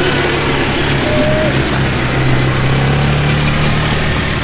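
ATV (quad bike) engine running steadily while riding, a constant low drone that holds the same pitch throughout.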